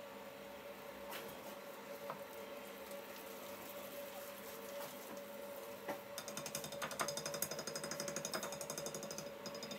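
Wire hand whisk mixing flour into a wet batter in a glass bowl: a few scattered clicks at first, then, about six seconds in, a fast, even run of rapid taps and scrapes as the whisking speeds up. A faint steady hum sits underneath.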